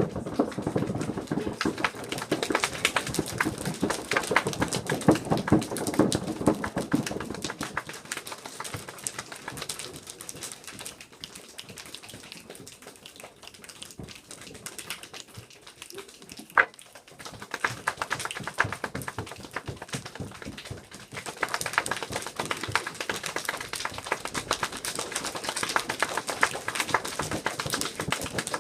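A group of children imitating rainforest rain with their hands and bodies: a dense patter of many small taps and clicks. The patter starts loud, thins to a quiet patter about a third of the way in, with one sharp snap near the middle, then builds back up to a loud patter near the end.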